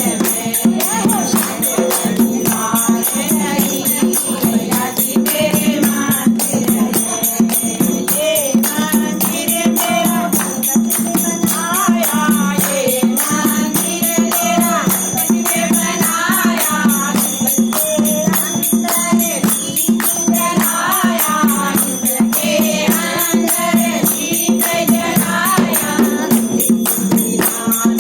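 Devotional group chanting in a temple, over a steady low drone and fast, continuous jingling of metal percussion.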